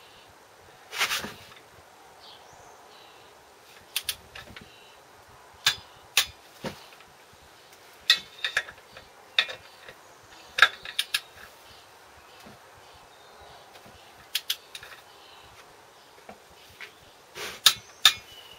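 Scattered sharp metallic clicks and clinks of a wrench and socket on the clutch pressure-plate bolts as they are torqued up to 25 lb ft, some in quick pairs, with a short rasp about a second in and a quick run of clicks near the end.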